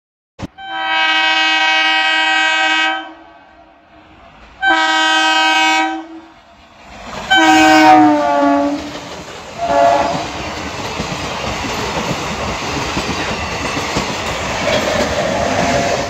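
Multi-tone horn of a CNG DMU passenger train: two long steady blasts, a third whose pitch drops as the train passes, and a short fourth toot. Then the steady rumble and wheel clatter of the coaches rolling past.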